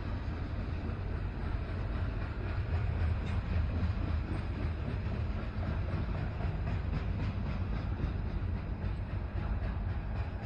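A CN manifest freight train passing close by, its mid-train diesel locomotive (a rear-facing DPU) and freight cars giving a steady low rumble. Faint rhythmic clicks of wheels over rail joints come in during the second half.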